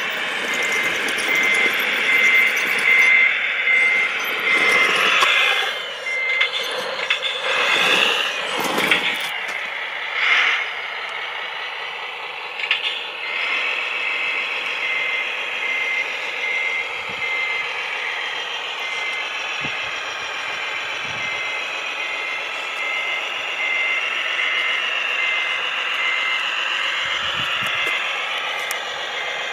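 RC model dump truck running with its reversing beeper sounding a steady repeated high beep, over continuous mechanical running noise, with a few louder rough bursts between about five and ten seconds in.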